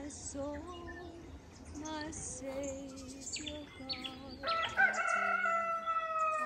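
A rooster crows once, starting about four and a half seconds in: one long call that falls slightly in pitch. Small birds chirp, and soft music plays underneath.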